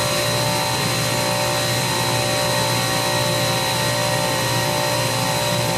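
Multistack water-cooled modular chiller running with its compressors on: a steady mechanical hum with several steady tones, including a thin high whine.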